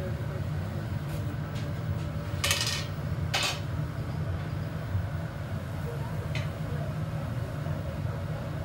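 Steady low rumble of a glass studio's gas-fired furnace, with two short metallic clatters a few seconds in as the steel blowpipe and punty are worked at the bench.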